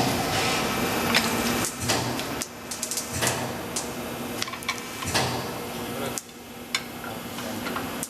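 Irregular metal knocks and clinks of tools working a 7.50-16 tyre off its rim, over a steady low hum.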